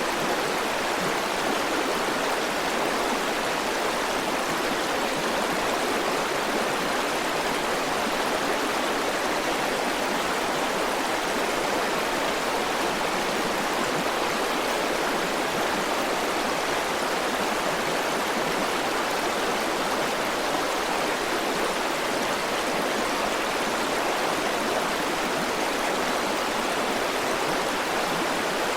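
Steady rushing of a flowing river or stream, an even wash of water noise with no change in level.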